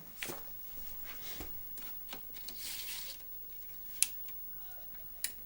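Hands handling a floppy disk at a Commodore 1541-II disk drive: soft rustling and fumbling, with two short sharp clicks near the end.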